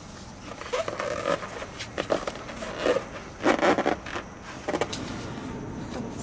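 A run of short scraping and rustling sounds from balloon decorations being handled. There are about five brief bursts, and the loudest comes about three and a half seconds in.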